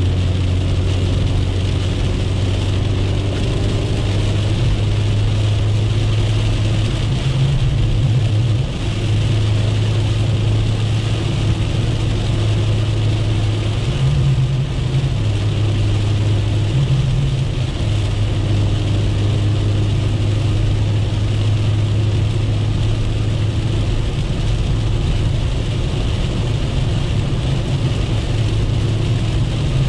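Inside the cabin of a 1997 Chevrolet Corsa Wind cruising on a highway in heavy rain: the engine drones steadily under an even hiss of rain and tyres on the wet road. The engine note steps up and settles back a few times.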